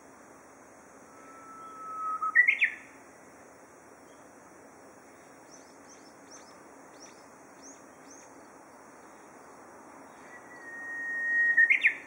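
Japanese bush warbler (uguisu) singing its 'hoo-hokekyo' song twice. Each song is a long held whistle that swells in loudness and ends in a quick rising flourish of higher notes; the second song's held note is pitched higher than the first's. Faint, short, high chirps come between the two songs.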